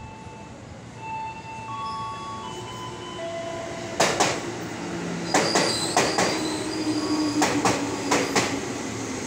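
Electric commuter train pulling into a station: its wheels click over rail joints in quick pairs from about four seconds in, as each car passes. Under the clicks runs a low whine that falls slightly as the train slows. A few held tones sound in the first seconds, before the clicking starts.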